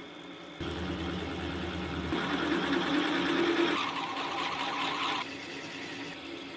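Milling machine spindle running with a drill cutting into metal. The cutting noise comes in under a second in, with a fast low pulsing, and eases off a little after five seconds in, leaving the spindle running.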